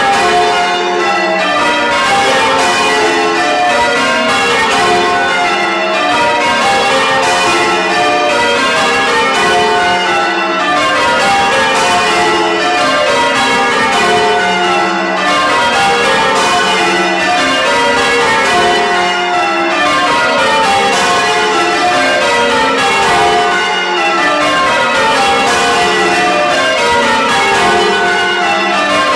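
Church tower bells ringing full-circle in rows, each row a quick run of strokes stepping down in pitch. The rows follow one another continuously, with a short break at regular intervals.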